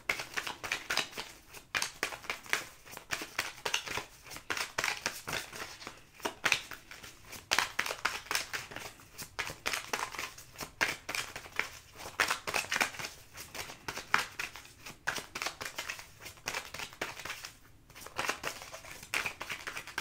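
A tarot deck being shuffled by hand: an irregular run of quick papery clicks and crackles, with a brief pause a couple of seconds before the end.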